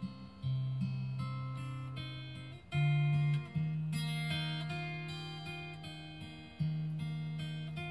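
Instrumental acoustic guitar music: plucked notes that sound sharply and slowly fade, over low bass notes.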